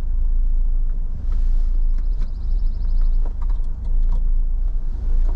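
Mazda RX-8's twin-rotor Renesis engine idling with a steady low hum, heard inside the cabin. A few light plastic clicks come a little past the middle as a plug-in unit is fitted to the OBD2 port under the dash.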